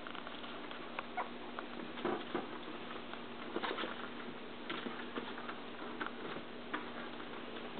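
Yorkshire terrier puppies' paws and claws pattering and clicking on a tile floor as they scamper, irregular small taps, over a faint steady hum.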